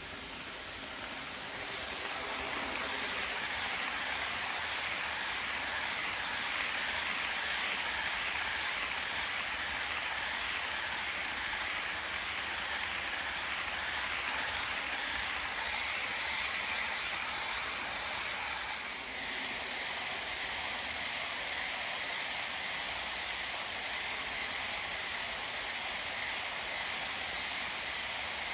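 HO scale model trains running on sectional track: a steady whirring hiss of the motors and wheels on the rails, growing louder over the first couple of seconds as a locomotive comes past close by.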